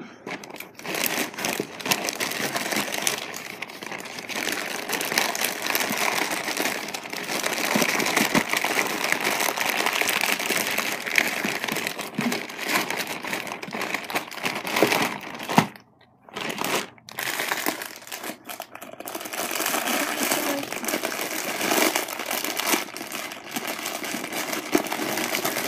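Clear plastic bag of penny candy crinkling and rustling as it is handled, with a short break about sixteen seconds in.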